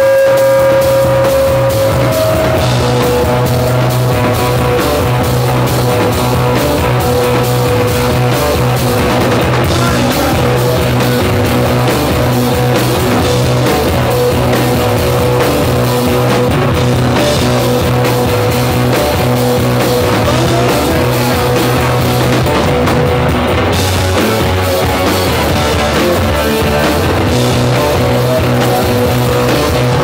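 Live rock band playing loud: electric guitars, bass guitar and a drum kit, with a steady sustained note held through the music.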